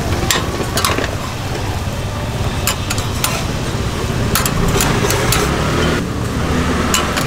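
Egg rolls sizzling as they pan-fry on a griddle, with irregular sharp clicks of a metal spatula against the pan.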